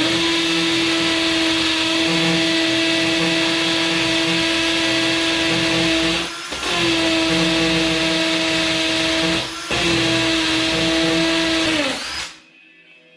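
Electric drill boring a hole into a masonry wall for a concrete anchor. The motor runs up to speed, drills steadily with two brief pauses, and winds down with a falling pitch near the end.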